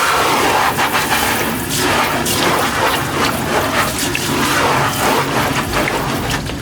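Hose water spraying onto a screen-printing screen's mesh in a sink, rinsing out the haze remover; a steady rushing hiss that starts suddenly and varies a little as the spray moves across the screen.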